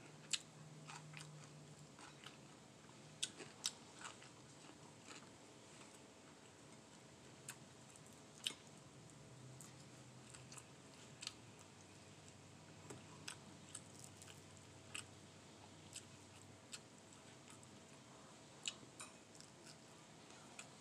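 Faint chewing and mouth sounds from someone eating fried fish by hand, with scattered short crunches and clicks every second or so.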